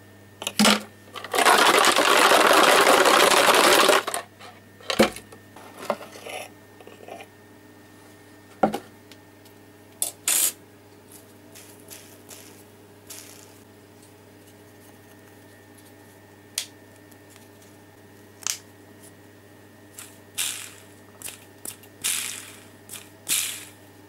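A small steel ball bearing clicks as it drops into a plastic bottle of liquid, which is then shaken hard for about three seconds. After that come scattered small clicks and taps as the bearing is handled and pressed into a small wooden block.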